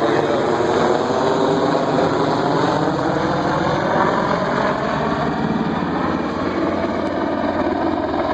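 AH-64 Apache twin-turbine helicopter flying close by: a loud, steady drone of rotor and turbines, its pitch drifting slightly in the middle as it moves past.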